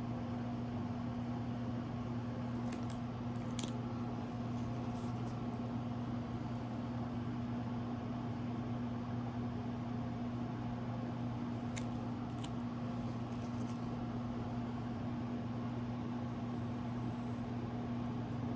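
Steady low mechanical hum from an appliance or motor running in the room, with a few faint light clicks.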